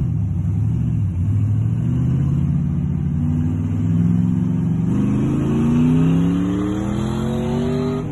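LS V8 engine of a 1956 Chevrolet pickup running alongside, then accelerating, its pitch climbing steadily through the second half.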